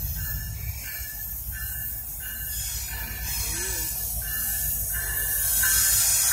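Diesel locomotive of a freight train approaching, its low engine rumble growing steadily louder, with a bell ringing at an even pace, about one strike every 0.7 seconds.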